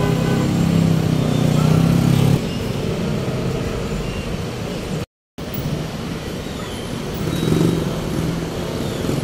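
Street traffic: a motor vehicle's engine running close by with a low, steady hum that cuts off abruptly about two seconds in, then a general traffic haze with another engine swelling briefly near the end. A brief dropout to total silence falls about halfway through.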